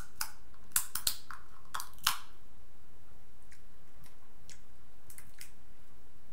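Shellfish shell cracking: a cluster of sharp snaps in the first two seconds as the shell is bitten, then a few fainter clicks as shell is peeled off by hand.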